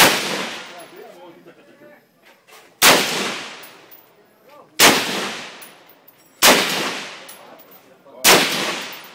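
M16 rifle firing five single 5.56 mm shots, spaced roughly two seconds apart, each sharp crack trailing off in a long echoing decay.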